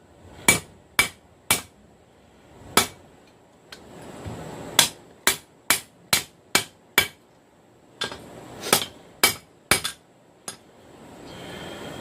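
Hand hammer striking a hot railroad-rail steel piece on the anvil, drawing out the heel to lengthen it. About fifteen sharp blows come in three runs, with short pauses between runs. A steady rushing noise comes in near the end.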